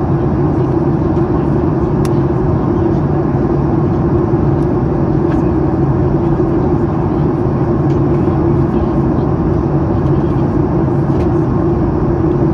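Steady in-flight cabin noise of a Boeing 737 MAX 8, the rush of airflow and its CFM LEAP-1B turbofans running at a constant setting, heard from inside the cabin with an even low hum.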